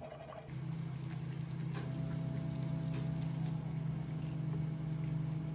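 A steady low hum like a small electric motor, which comes on about half a second in, with a few light clinks of a metal spoon against a frying pan.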